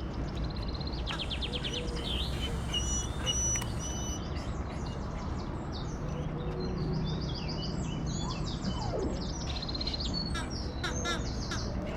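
Small birds chirping and singing in quick high trills, over a steady background hiss.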